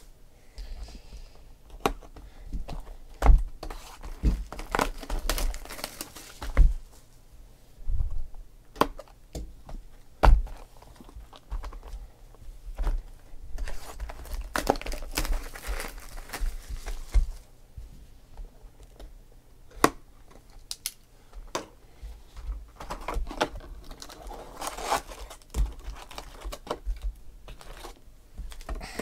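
Plastic shrink-wrap being torn and crinkled off cardboard trading-card boxes, with scattered knocks as the boxes are handled and set down, and the box lid flipped open near the end.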